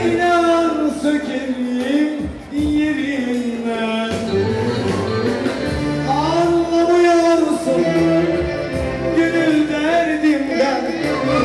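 Music with a man singing long, wavering held notes over steady instrumental backing.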